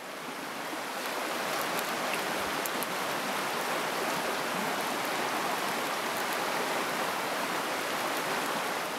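Creek water rushing steadily over shallow rapids, building over the first second and fading away at the very end.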